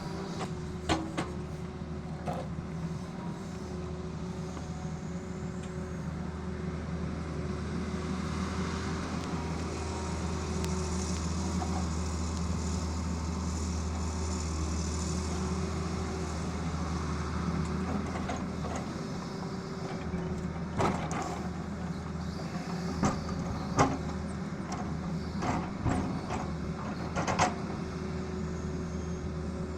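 Tata Hitachi excavator's diesel engine running steadily, a little louder in the middle, with a few sharp metallic knocks near the start and towards the end.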